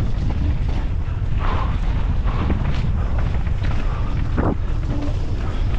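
Heavy wind rush on the microphone of a mountain bike rider at speed, with a steady low rumble and a few short scrapes and rattles from the tyres and bike on the dirt trail.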